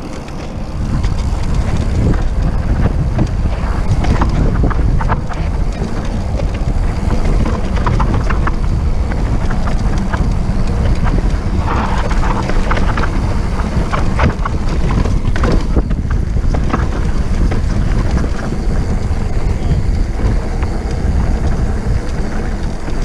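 Wind buffeting the camera microphone as a mountain bike descends a dirt trail at speed, with tyres running over dirt and many sharp rattles and clicks from the bike.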